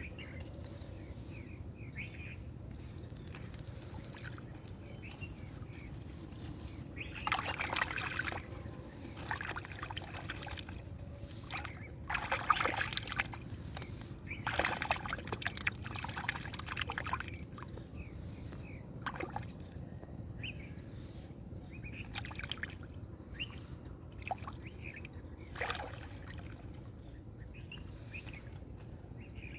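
Water sloshing and splashing in several short bouts, over a steady low background with faint bird chirps.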